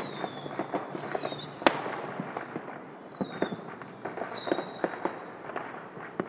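Fireworks and firecrackers going off nonstop, a dense stream of small pops and crackles with one sharper bang about a second and a half in. Several high whistles, each falling in pitch over about a second, run over the pops.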